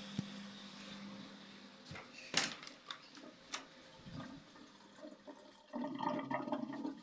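Indesit washing machine draining its wash water instead of spinning. The drain pump's steady hum fades early, a few sharp knocks follow, and near the end the water gurgles loudly as it empties out.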